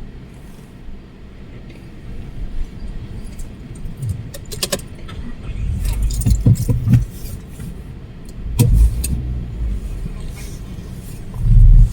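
Gale-force storm wind gusting and buffeting the microphone in uneven surges, the strongest near the end, with bursts of sharp rattling clicks about four and a half and again about nine seconds in.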